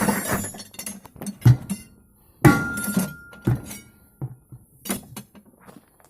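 Irregular metal-on-metal strikes and clanks, roughly one a second, as a hammer and tools work on a backhoe's steel front wheel rim to break the tyre off by hand. Several blows ring briefly, the loudest at about a second and a half and two and a half seconds in.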